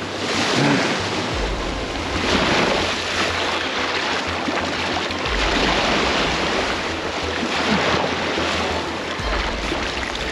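Gulf surf breaking and washing up the beach in a steady, rising-and-falling hiss, with wind rumbling on the microphone.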